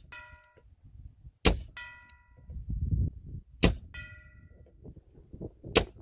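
Crosman Crusher .22 nitro-piston break-barrel air rifle firing slugs three times, about two seconds apart, each shot sharp and loud. About a quarter second after each shot, the metal target rings briefly as the slug strikes it.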